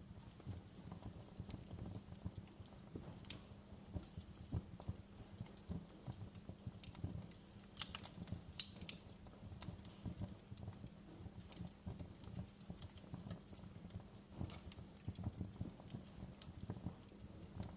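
Outdoor wood fire crackling, a steady patter of small irregular pops with a few sharper, higher snaps about three seconds in and again around eight to nine seconds.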